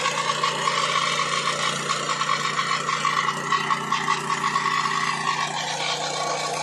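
Sawmill machinery running steadily, a constant hum with a pulsing high whine over it.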